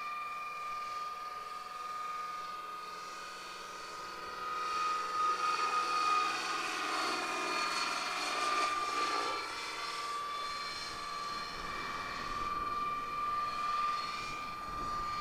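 Scale RC CH-47 Chinook tandem-rotor model helicopter in flight: a steady high whine from its drive with the swish of its twin rotors. About a third of the way in it grows louder, with a pulsing rotor chop as it banks closer, then eases back to the steady whine.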